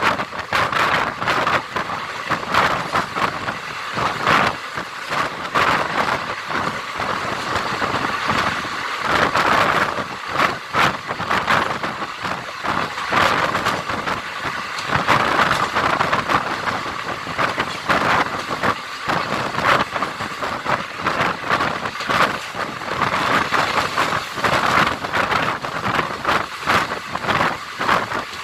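Indian Railways express train running at speed, heard from on board: wind rushing past mixed with the rumble and irregular clatter of wheels on the track.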